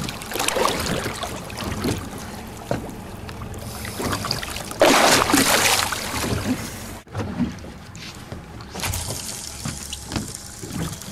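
Water trickling and splashing beside a boat, with a loud rush of noise about five seconds in.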